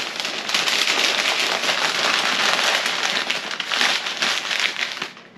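Sheets of packing paper crinkling and crackling as they are folded by hand around a sweater: a dense, steady crackle that dies away near the end.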